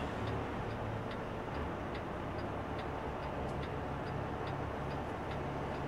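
Truck's turn-signal flasher clicking steadily, about twice a second, over the low hum of the idling diesel engine, heard inside the cab.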